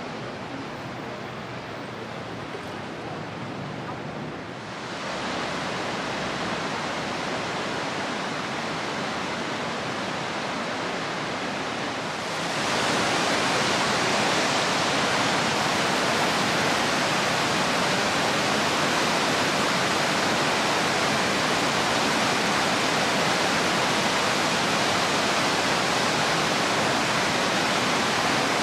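Steady rushing water, stepping louder suddenly about five seconds in and again about twelve seconds in.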